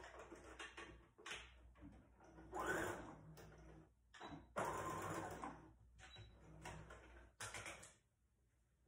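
Brother electric sewing machine running in several short bursts of stitching, the longest about halfway through, stopping about 8 seconds in: a few tacking stitches to hold a ribbon in place.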